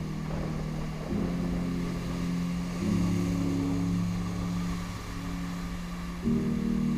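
Calm electronic background music: sustained low synth chords that change every second or two.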